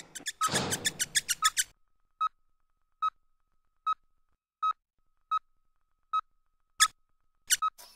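Hospital heart-monitor beep: a single short high electronic beep repeating steadily about once every 0.8 s. Over the first second and a half it is mixed with a rapid run of clicks and rustling noise, and two sharp clicks come near the end.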